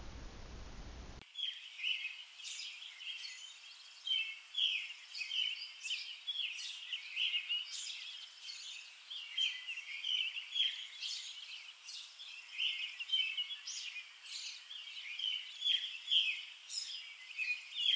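Several songbirds chirping and singing in a continuous chorus of short, high calls, starting about a second in.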